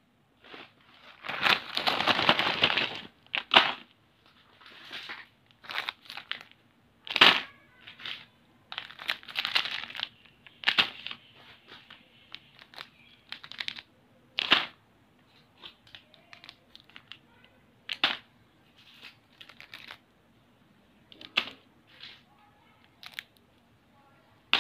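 Plastic snack wrappers crinkling and rustling as packaged snacks are set one by one into a plastic basket. There is a longer stretch of crinkling near the start, then short, irregular crackles and light taps.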